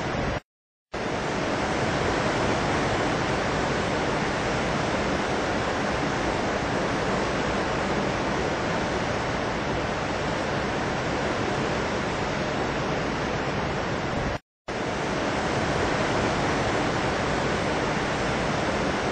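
Steady, even rushing noise with no change in level or pitch, like wind or falling water, cut twice by brief dropouts to dead silence: once just after the start and once about three-quarters of the way through.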